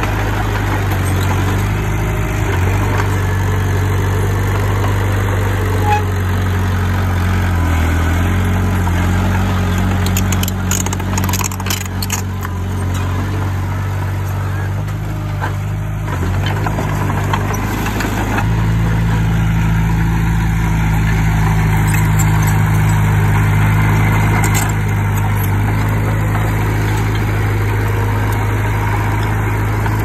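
Heavy diesel engine of earthmoving machinery running steadily. It dips briefly twice and then picks up to run louder for the last third. A few sharp metallic clicks come in the middle.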